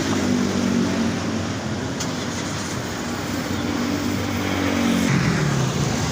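Motor vehicle engine running nearby, a steady low hum whose pitch drops about five seconds in, over road traffic noise.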